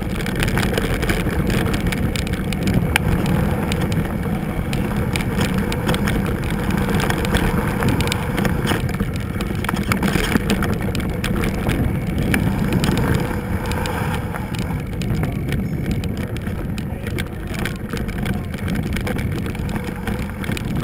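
Maxx Huraxdax fat bike rolling over a loose gravel and stone trail, heard from the bike itself: a steady low rumble of the wide tyres on the stones, with many small clicks and rattles.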